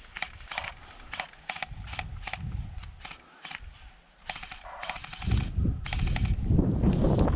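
Airsoft guns firing single shots, a dozen or so sharp cracks spaced irregularly about two or three a second. From about five seconds in, loud rustling and footfalls of the player moving take over.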